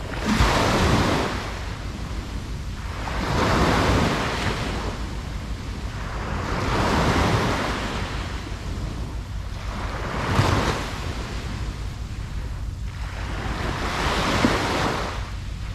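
Ocean waves breaking on a beach, the surf swelling and falling back about every three to four seconds, five surges in all, over a steady low rumble.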